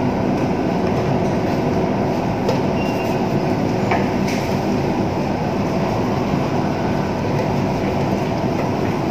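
Steady, loud mechanical rumble with a dense low drone, holding level without a break.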